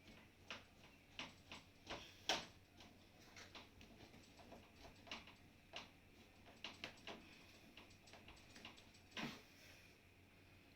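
Parts of a dishwasher being handled during repair: irregular light clicks and taps, with a louder knock about two seconds in and another near the end.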